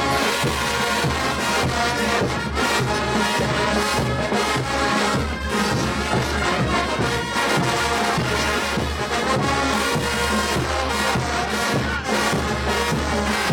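Large Bolivian brass band playing loudly: a massed section of trumpets, trombones and other brass over bass drums and clashing crash cymbals, with a steady driving beat.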